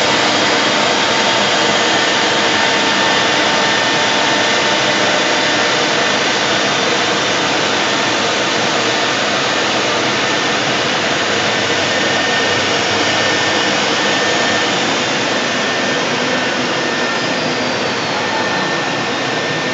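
CNC router spindle running at speed while its bit routes a cabinet-door profile into a board: a constant loud rushing noise with a steady high tone, unchanging throughout.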